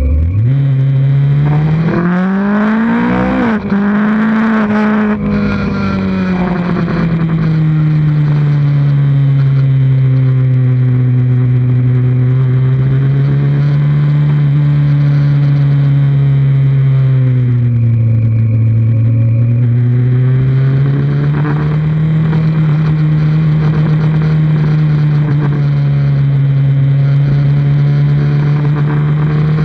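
2003 Kawasaki Z1000's inline-four engine heard from the bike itself, with wind rushing past. The engine revs up sharply over the first few seconds with a couple of brief dips as it shifts. It then holds steady revs, eases off a little past halfway and picks up again.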